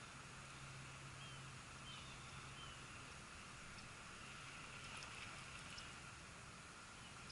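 Faint outdoor background: a steady hiss with a few faint, short, high chirps scattered through it, and a low hum that stops about a second and a half in.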